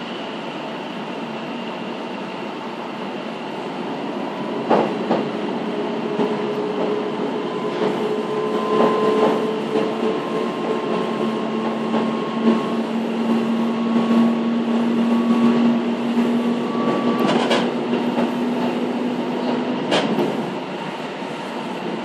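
Passenger train running on the line, heard from inside the carriage: a steady rumble of wheels on rail with a few sharp clacks over rail joints. A steady whine sets in about five seconds in and stops shortly before the end, its highest tone creeping slightly upward.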